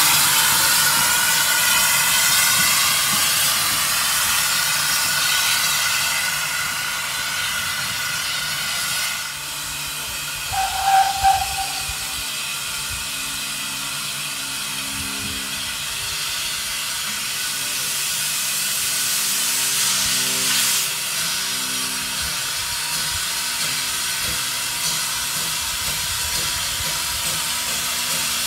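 Small saddle-tank steam locomotive, No. 1340 Trojan, hissing steam steadily as it stands with its train. About ten seconds in comes a short, high whistle toot.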